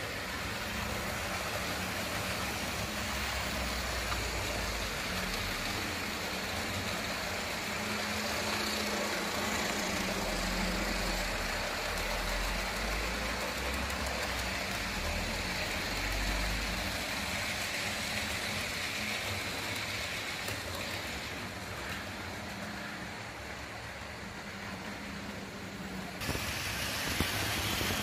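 HO-scale model trains running on the layout: a steady whirr of the locomotive motors and the rolling of wheels on the track, with a low hum underneath. The higher part of the noise drops away for a few seconds near the end, then comes back.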